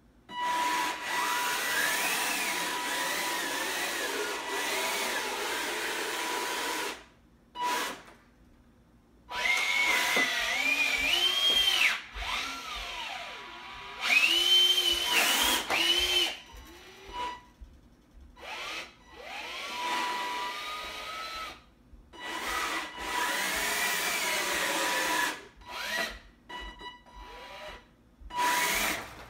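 Electric motors of a hobby robot whining as it drives and works its lifting arm. The sound comes in stop-start bursts with short pauses, its pitch rising and falling as the motors speed up and slow down, with a steady high tone under it while they run.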